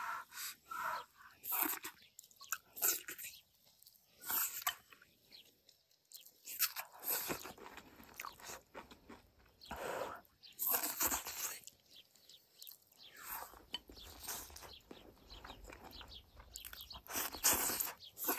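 A person chewing mouthfuls of rice and one-pot stew, in irregular bursts with short pauses between them.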